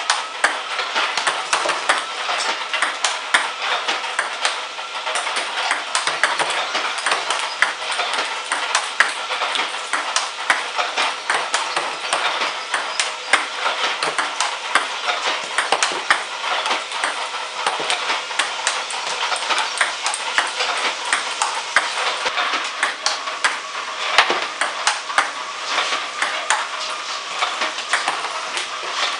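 Table tennis drill with an iPong Master V300 ball robot: a rapid, continuous stream of ping-pong ball clicks as balls are fed, bounce on the table, are struck backhand with a paddle and land in the catch net, hit after hit. A faint steady whir runs underneath.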